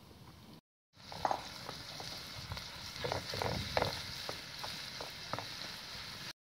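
Minced lamb sizzling in oil in a metal pan, starting about a second in, while a wooden spatula stirs it and scrapes across the pan several times.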